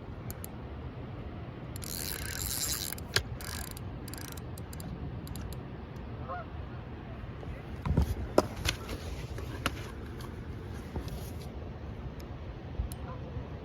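Steady outdoor river noise with scattered clicks and knocks of fishing gear being handled during a fish fight, and a few faint honking bird calls about six seconds in.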